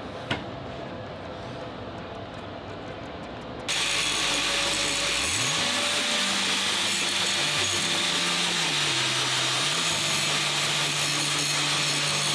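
Grinder grinding a relief into the engine case. It starts about four seconds in and runs steadily with a bright, hissy grinding noise, its motor pitch sagging and recovering as it bites.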